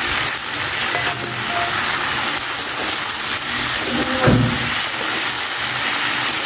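Mushrooms, onion and sweet corn sizzling in hot oil in a wok, stirred with a slotted metal spatula, with one louder knock about four seconds in.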